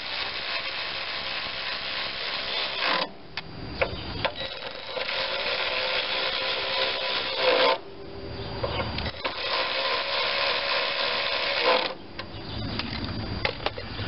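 Cordless electric ratchet running bolts down on a small engine's air filter base plate, in three runs of a few seconds each with short pauses between.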